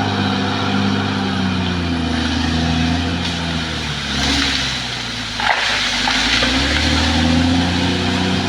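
Caterpillar D6R XL bulldozer's diesel engine running, its pitch sagging midway and then rising again. A rush of noise and a sharp crack come about five and a half seconds in.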